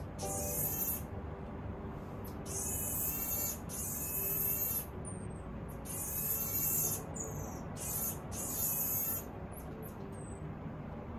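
Common marmoset giving a string of high-pitched whistling calls, about eight, each half a second to a second long, with a couple of short falling chirps between them.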